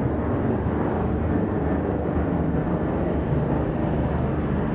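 Boeing 747-400's four turbofan engines at climb power, heard from the ground as the jet climbs away: a steady, even rumble.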